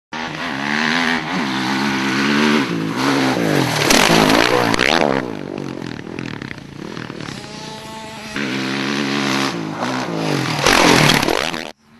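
Motocross dirt bike engine revving hard, its pitch climbing and dropping over and over, loudest twice. The sound cuts off suddenly near the end.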